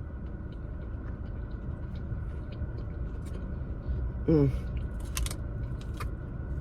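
A person chewing food close to the microphone, with small wet mouth clicks, over a steady low background hum; a short hummed vocal sound about four seconds in.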